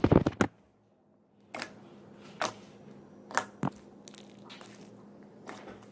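Clear slime squished and popped by hand: a loud squelch at the start, then after a moment of quiet a handful of separate small pops and clicks about a second apart.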